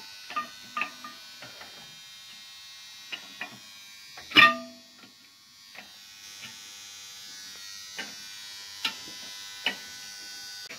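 Steel tools and tooling clinking and knocking against each other and the cast-iron T-slot table of a drilling/milling machine, with one loud ringing clank about four seconds in, over a steady electric motor hum.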